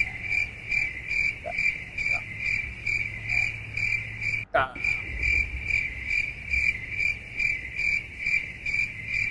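Cricket chirping sound effect, a steady high chirp repeating about three times a second, the stock comic cue for an awkward silence. About halfway through, a short falling swish cuts in.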